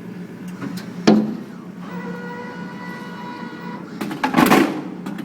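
Soda vending machine dispensing: over a steady low hum, a sharp knock about a second in, a steady motor whine for about two seconds, then a loud rattling clatter near the end.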